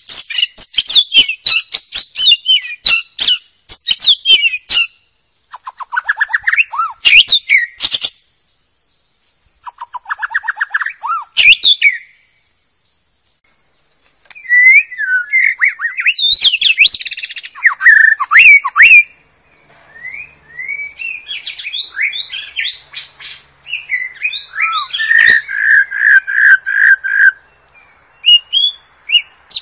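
White-rumped shama (murai batu) singing a long, varied song of whistles, fast trills and sharp clicking notes, in phrases with short pauses between them. There is a break of about a second and a half near the middle. Near the end comes a quick series of repeated notes.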